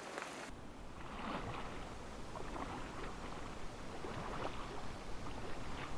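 A light patter of rain cuts off half a second in. After it come soft, irregular splashes of a paddle stroking river water from an inflatable boat, about one a second, over a low rumble of wind on the microphone.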